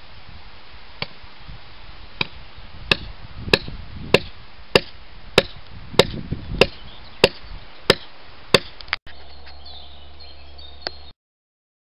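Hammer blows driving a rail screw into a sleeper of 600 mm narrow-gauge track: about a dozen sharp strikes, sparse at first, then settling into a steady beat of nearly two a second. The strikes cut off abruptly, followed by a short steady hum with one click, then silence.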